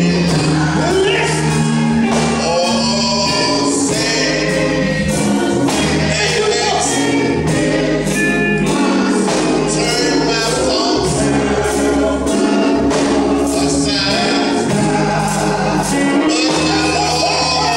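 Church choir singing gospel music, with held notes over a low accompaniment that changes note every second or two.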